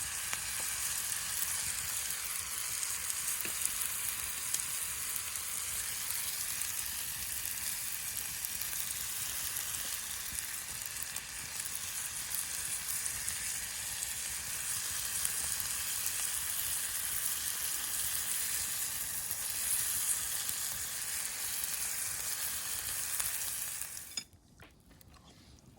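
Food sizzling steadily in a hot pan over the fire, cutting off abruptly near the end.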